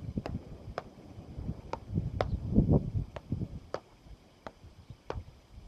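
Beach tennis paddles striking the ball in a fast volley exchange: sharp pops at about two hits a second. Wind rumbles on the microphone in the first half.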